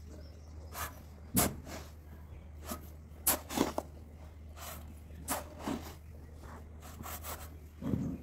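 A shovel scraping into a heap of manufactured sand and tipping loads into a metal wheelbarrow: irregular short scraping strokes, some in quick pairs, a second or so apart, over a steady low hum.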